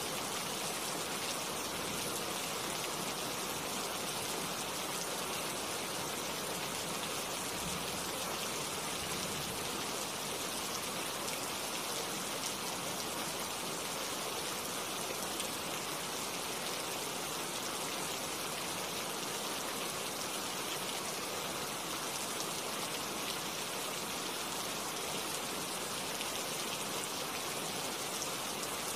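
Steady rain falling on tree leaves: an even hiss of many drops that neither builds nor eases.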